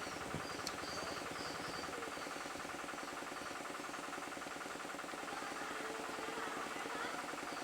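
An engine idling steadily, with a few faint high chirps in the first second.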